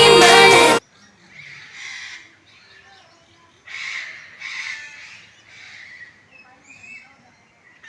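Music stops abruptly less than a second in, then a bird calls repeatedly: about six harsh calls of roughly half a second each, spaced a second or so apart.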